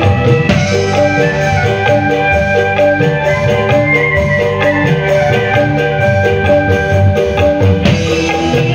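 Dangdut koplo band music: a hand-played kendang drum pattern under a melody of short pitched notes.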